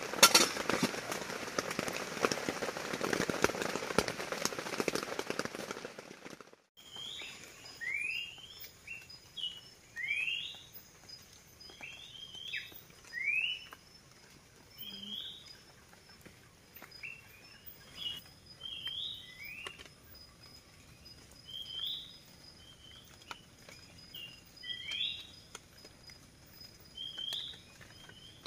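Heavy rain pouring down, a dense patter of drops, which stops abruptly about six and a half seconds in. Then forest birds call in the early morning: short sweeping chirps, some rising and some falling, repeated every second or so.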